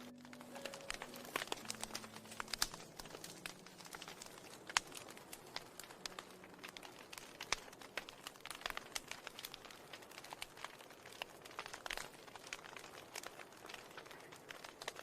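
Irregular soft crackling, a scatter of sharp clicks several times a second, with the low notes of ambient music dying away in the first few seconds.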